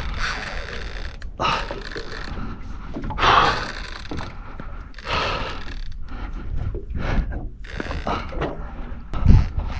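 Fishing reel working under heavy load from a big fish, its gears and ratchet clicking in irregular surges about every one to two seconds.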